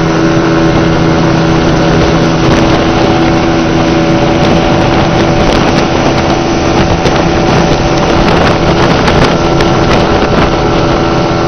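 Towing motorboat's engine running steadily at speed, heard from on board, with a steady hum over a rush of water and wind noise.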